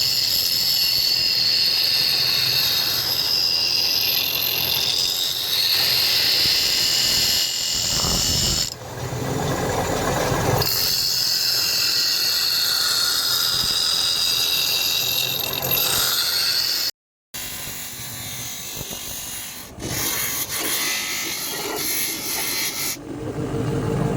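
Electric power grinder running against steel, a steady high whine that shifts as the tool works the leaf-spring spear blade. About seventeen seconds in the sound cuts off abruptly, and after the cut a quieter, uneven tool sound follows.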